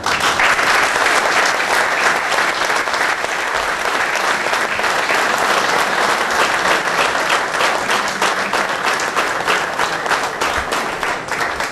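Audience applauding, a dense steady clapping that starts suddenly and thins out near the end.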